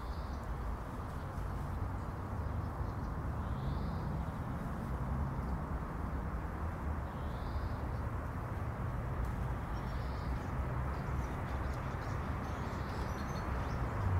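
A few faint, short, high bird chirps every two to three seconds over a steady low rumble of distant road traffic and wind on an unshielded recorder microphone.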